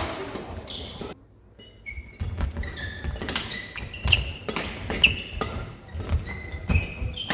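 Badminton rally: racket strings striking the shuttlecock, shoe soles squeaking on the court floor and footfalls thudding. The sound drops out almost entirely for about a second, a second in.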